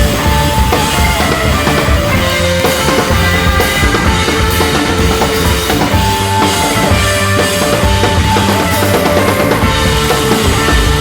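Rock music with a driving drum kit and held instrument notes.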